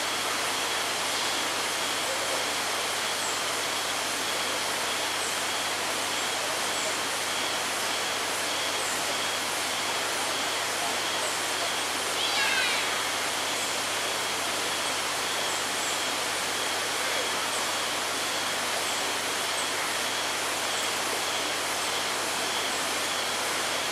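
Steady rushing of flowing water, with a thin steady high tone over it and one short falling call about halfway through.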